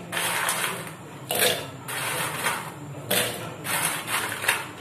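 Hands scooping dry broken biscuit pieces off a steel plate and dropping them into a stainless-steel mixer-grinder jar: irregular scraping, rustling and clattering of biscuit on metal, in five or six separate handfuls.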